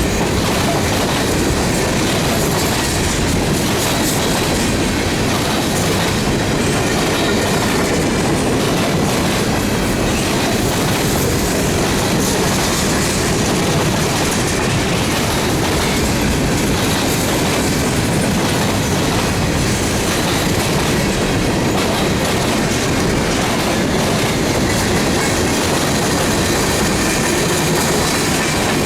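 Freight train cars rolling steadily past at close range: a loud, even rumble and rattle of steel wheels on the rails.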